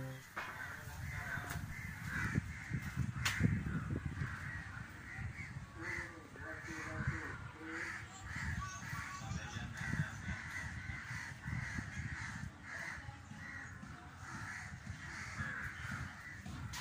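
Crows cawing over and over, a steady chorus of harsh calls, over a low uneven rumble.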